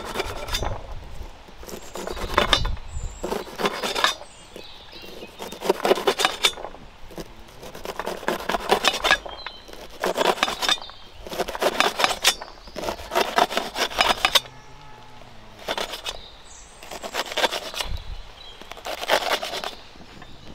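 Knife chopping green garlic against a steel plate, in quick runs of strokes about a second long with short pauses between.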